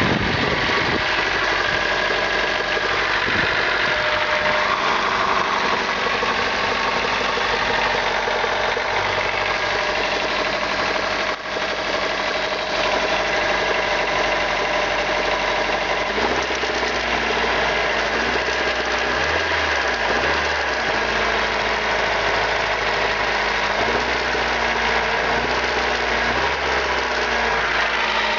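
Honda D15B 1.5-litre four-cylinder engine running steadily with a knock from the crankshaft. The knock comes from scored crankshaft main bearing shells knocking in their saddles.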